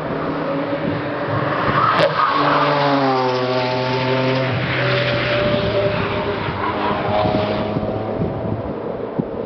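Racing car engine coming through at speed, with a single sharp crack about two seconds in; its note drops as it goes by, then it carries on further off and fades near the end.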